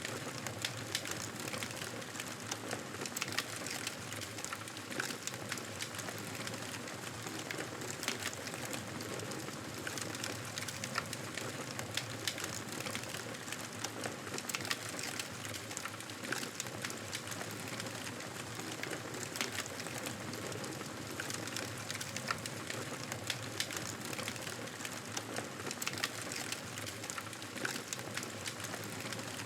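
Wood fire crackling in a fireplace: frequent, irregular small pops and snaps over a steady soft hiss.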